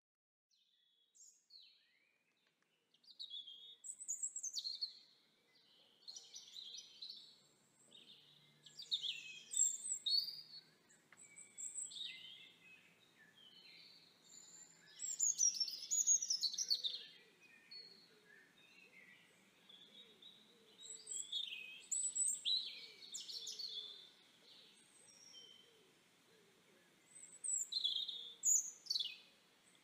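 Wild birds calling and chirping: many short, varied high calls, some sweeping down in pitch, coming in clusters every second or two, starting about a second in.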